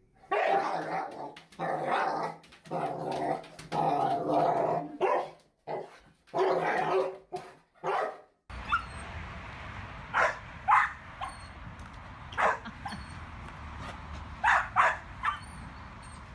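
A dog whining and moaning in about six long, drawn-out cries, one after another. Then, over a steady background hiss, a scattering of short, sharp dog barks.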